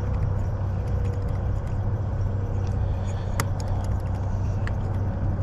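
Small metallic clicks of a pick and tension wrench working the spool pins of a Defiant deadbolt, with one sharper click about three and a half seconds in. Under them runs a steady low hum like an idling engine.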